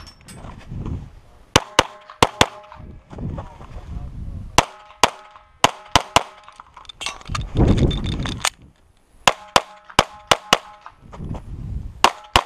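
9mm pistol shots from a Springfield XDm 5.25" fired rapidly, mostly in quick pairs, in several strings with short pauses between. Some shots are followed by a brief ringing tone.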